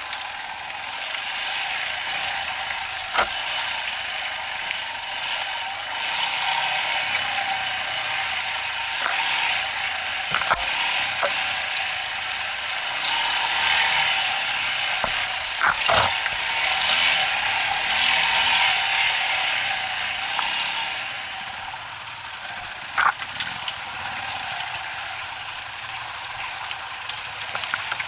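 Off-road motorcycle running along a mountain trail, a steady mechanical clatter of engine and drivetrain with sharp knocks now and then, loudest around the middle.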